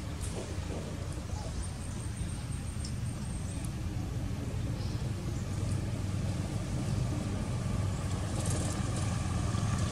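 Low rumble of a motor vehicle engine running nearby, growing gradually louder, with a faint engine hum coming in over the second half.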